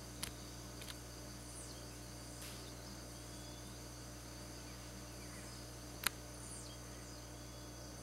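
Steady high-pitched insect chorus, with faint short descending chirps every second or two and a single sharp click about six seconds in.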